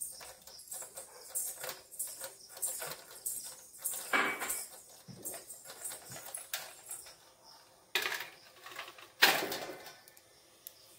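Light, irregular clinks and knocks of small shrine items being handled while the shrine is cleaned, with a longer, louder clatter about four seconds in and the loudest one about nine seconds in.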